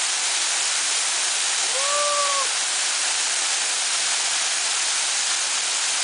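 Waterfall rushing and splashing onto rocks and into the pool below in a steady, loud roar of water. About two seconds in, a person's short held voice call sounds briefly over it.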